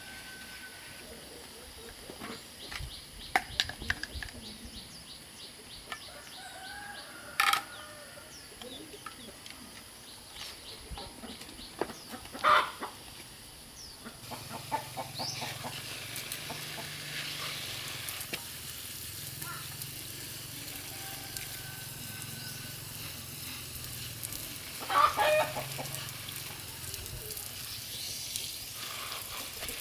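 Chickens calling: three loud short calls, about a quarter of the way in, near the middle and near the end, over scattered small clicks and taps.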